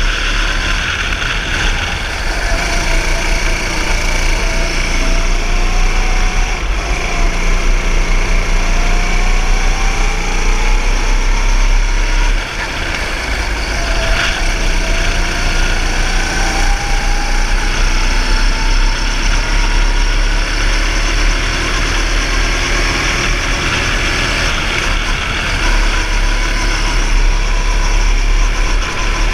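Go-kart engine heard on board while lapping, its pitch dropping as the kart slows for a corner about two seconds in and again about fourteen seconds in, then climbing back each time as it accelerates out.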